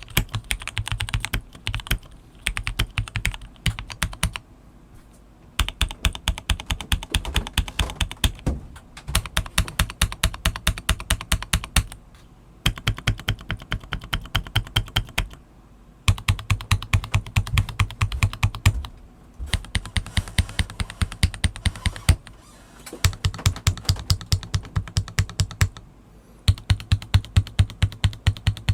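Stock KBM1800 (James Donkey RS2) gasket-mount mechanical keyboard with milky yellow linear switches being typed on in fast bursts of keystrokes, several a second, broken by short pauses every few seconds.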